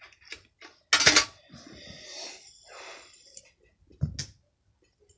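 Fidget spinners being picked through and handled: hard clinks and clacks, with a loud clack about a second in, a stretch of rustling in the middle, and a duller knock about four seconds in.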